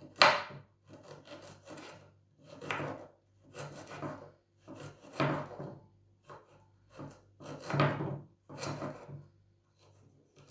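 Knife cutting ginger into small pieces: about a dozen uneven scraping strokes, the loudest right at the start.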